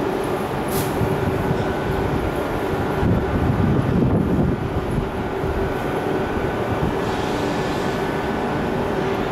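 Steady rumble and hum of an electric train that is not yet in view, with a constant droning tone; the low rumble swells for a moment about three seconds in.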